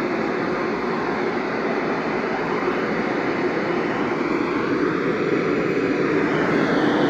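Steady radio static from a software-defined radio receiver tuned to a NOAA Weather Radio frequency, with no tone or voice coming through.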